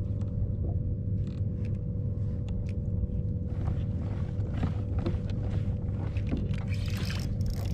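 Steady hum and low rumble of a boat motor, with small clicks and splashes of water against the kayak.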